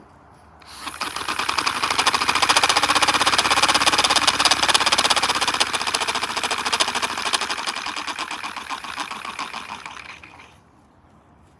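Single-cylinder paper model engine running on air fed through a tube: a fast, even stream of puffs and clicks over a rush of air. It starts about a second in, gets quieter after the middle and stops shortly before the end.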